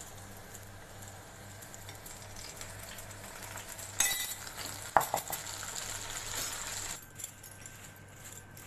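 Cornflour-coated corn kernels frying in hot oil in a kadhai, a steady sizzle, with two sharp clinks about four and five seconds in, the second ringing briefly. The sizzle cuts off about seven seconds in, leaving faint clicks.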